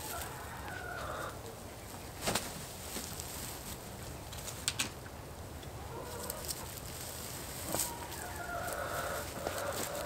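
Chickens clucking in two spells of calls, one at the start and one from about six to nine and a half seconds in, with a few sharp clicks in between.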